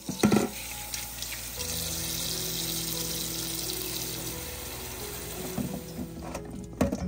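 Kitchen faucet running into a stainless steel bowl of cilantro and sweet peppers in the sink, a steady rush of water that stops shortly before the end. There is a sharp knock just as it begins and a few light knocks and splashes near the end.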